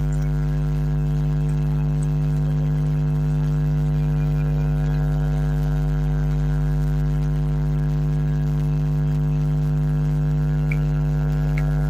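Steady low droning hum with many overtones, holding one even pitch and level; a couple of faint ticks near the end.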